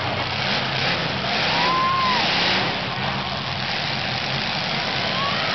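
Several demolition derby cars' engines running and revving together as the cars drive and push each other on dirt, with a high squeal rising and falling about two seconds in.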